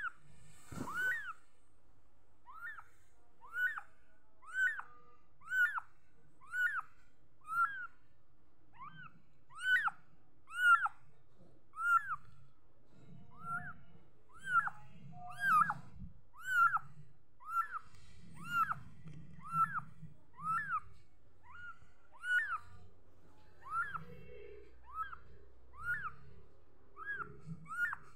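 Very young kitten mewing over and over: short, high-pitched mews about once a second, each rising and then falling in pitch.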